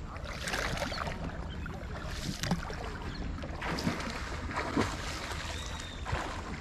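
Water splashing and lapping around a moving coracle, in short irregular splashes, with wind rumbling on the microphone.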